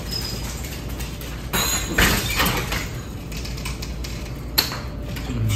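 Glass-paned French door being unlatched and opened: a rattling clatter about two seconds in and a sharp click shortly before the end, over a steady low hum.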